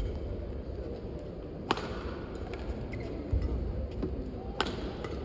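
Badminton rally: two sharp strikes of a racket on the shuttlecock, about three seconds apart, with a dull thud between them, over a steady low hall rumble.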